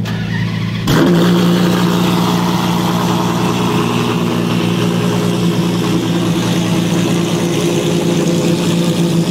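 Maserati MC12 Corsa's 6.0-litre V12 running at steady revs, stepping up to a louder, higher note about a second in and then holding it.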